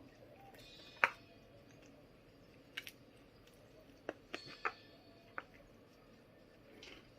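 Crisp crunching of lettuce being bitten and chewed: about six short, sharp crunches at irregular intervals.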